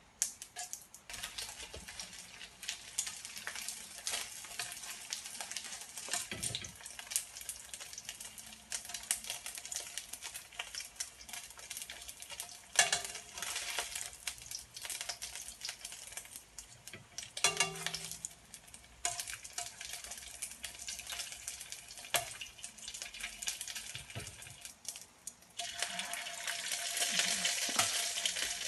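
Dumplings frying in hot oil in a nonstick pan, with steady sizzling and crackling that grows louder near the end. Metal tongs click sharply against the pan a few times.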